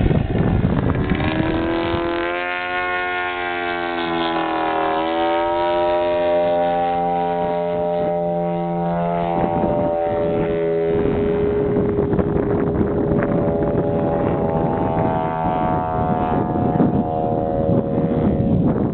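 Large gasoline engine (3W-275) of a 50% scale Edge aerobatic RC plane droning overhead, its pitch sliding up and down as it throttles through manoeuvres; the tone fades away about eleven seconds in and comes back a couple of seconds later. Wind rumbles on the microphone throughout.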